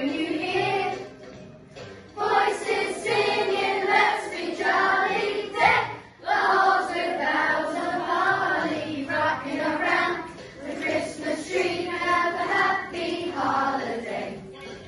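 A group of children singing a song together, with short pauses between phrases.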